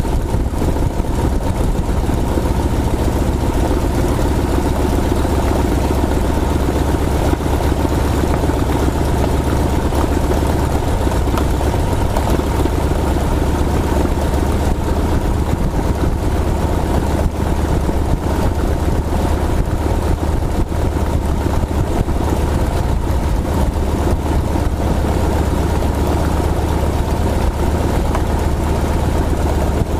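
The piston engine of a Spirit of St. Louis replica monoplane running steadily, heard from inside the cabin, with a deep, even rumble.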